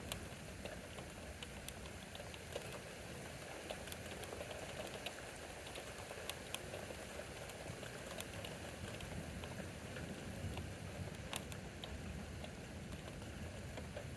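Steady rain falling during a thunderstorm, with scattered sharp ticks at irregular intervals.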